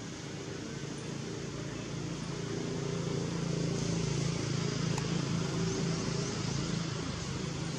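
A steady engine hum over an even background hiss, growing a little louder from about two seconds in and easing slightly near the end.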